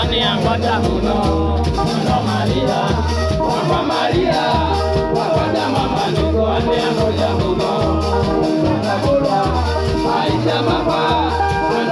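Live band playing: electric guitars over a steady, repeating bass beat, with a man singing into a microphone.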